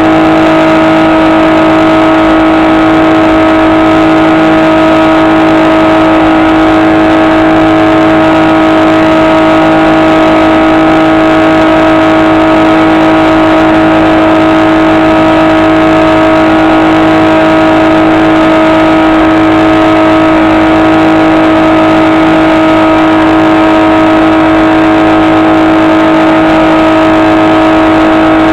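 HobbyKing SkyEye's electric motor and propeller giving a loud, steady whine at constant throttle, close to the microphone.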